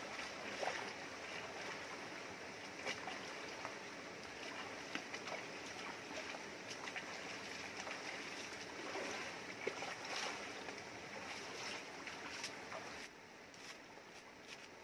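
Shallow rocky river rushing steadily, with intermittent splashing as a person wades through the water. About two seconds before the end the water sound drops quieter and a few short knocks follow.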